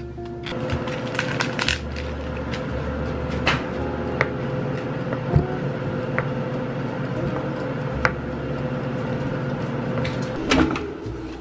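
Kitchen knife slicing through cooked chicken breast and knocking on a wooden cutting board, a few sharp separate taps, over a steady background hum.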